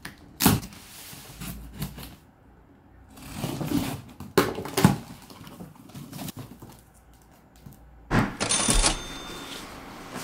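Cardboard shipping box being cut open and unpacked: a knife slitting the packing tape, flaps pulled open and the contents rustled. Scattered sharp clicks and knocks run through it, with a louder stretch of scraping or tearing near the end.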